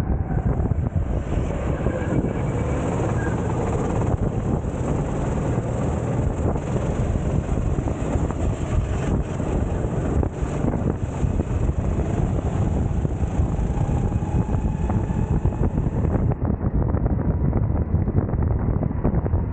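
Go-kart engine running at racing speed, heard onboard under heavy wind buffeting on the microphone, its faint note rising and falling gently through the corners.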